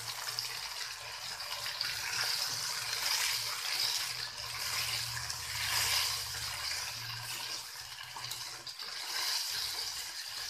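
Tomato-garlic paste with a splash of water sizzling in hot oil and fried onions in a kadhai as it is stirred with a spatula: a steady frying hiss.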